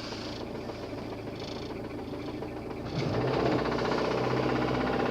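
Car engine running with a knocking clatter, getting louder and higher about three seconds in as the revs rise and hold. The owner suspects connecting-rod knock or a failed oil pump, with the oil pressure warning light staying on.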